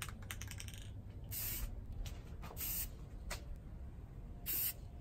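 Aerosol spray paint can (Rust-Oleum 2X Ultra Cover flat black) hissing in three short bursts as paint is sprayed onto steel, the first the longest, with a few light clicks just before them.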